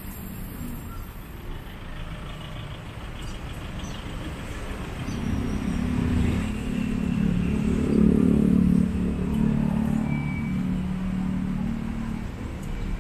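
Street traffic with a motor vehicle passing close by: its low engine hum builds from about five seconds in, is loudest around eight seconds, then fades.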